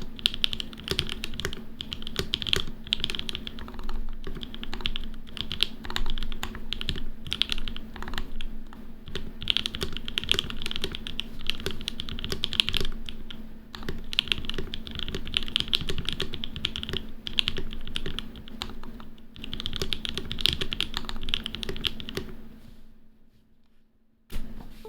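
Fast, continuous typing on a Matrix Lab Noah mechanical keyboard with lubed and filmed PrimeKB Lil' Tykes switches and GMK keycaps, in dense bursts of keystrokes. The typing trails off near the end. A faint steady hum runs underneath.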